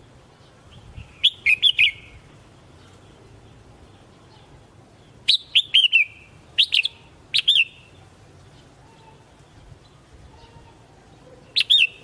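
Red-whiskered bulbul singing: five short phrases of quick, bright notes, each lasting less than a second, with pauses of a second to four seconds between them.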